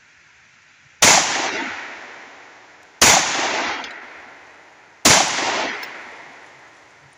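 Three shots from a Stoeger STR-9C 9mm compact pistol, fired slowly about two seconds apart. Each report rings out and fades over about a second.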